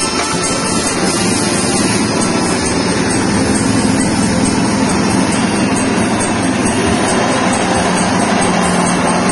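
Small single-cylinder petrol engine running steadily, driving a stainless-steel soybean cracker and hull separator.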